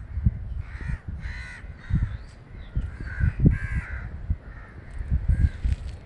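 Crows cawing several times, the loudest calls about a second and a half and three and a half seconds in, over a low, uneven rumble.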